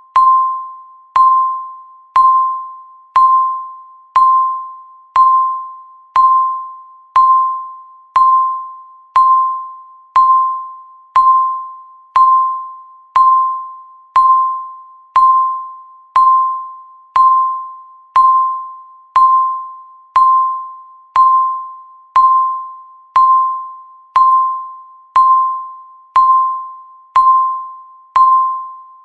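Electronic countdown-timer beep, one short pitched tone each second with a sharp start and a quickly fading tail, marking each second that passes.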